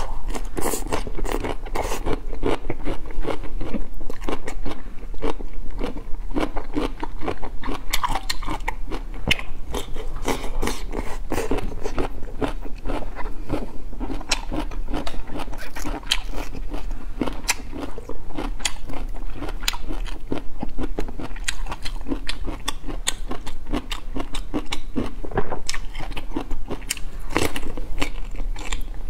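Close-miked eating sounds: a person biting and chewing chili-dusted food rolls, a steady stream of small crunches and crackles.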